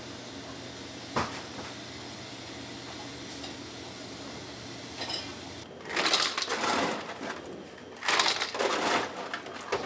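Ice cubes clattering and rattling in a stainless steel bowl, in two loud bursts about six and eight seconds in. Under them runs the steady sound of a pot of soba noodles at a rolling boil, with a single click about a second in.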